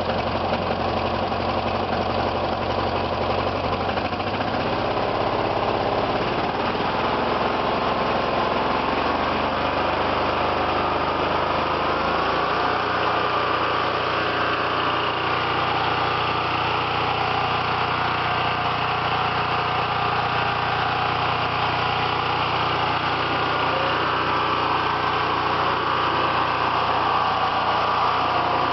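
Murray Pro riding mower's 18 hp Briggs & Stratton V-twin engine running. Its speed climbs gradually from about 4 to 12 seconds in, then holds steady at a faster speed.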